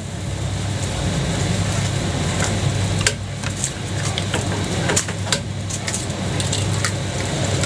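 Metal utensils scraping and tapping at a jianbing griddle, a dozen or so short clicks scattered through, over a steady low hum.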